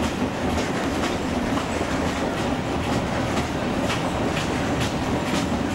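Inside a moving narrow-gauge railway coach: a steady rumble of the running train, with the wheels clicking over the rail joints about twice a second.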